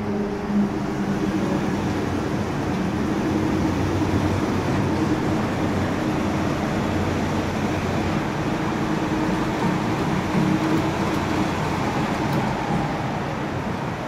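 Raised wheel and tire of a Toyota truck spinning in gear on a lift, with the drivetrain running: a steady hum and rumble. The noise is traced to the tire itself rather than a wheel bearing.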